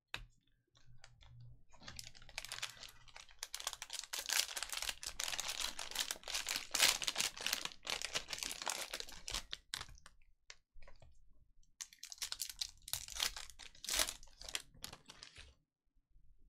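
Trading card pack wrappers being torn open and crinkled by hand, in two spells of dense crackling with a short pause between.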